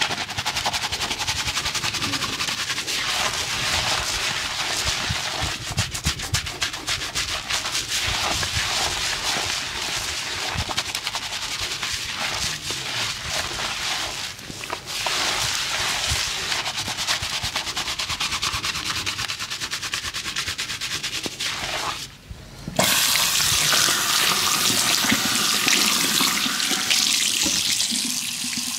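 Water running and splashing, full of small crackles. After a brief break about 22 seconds in, it comes back as a louder, steadier rush of running water.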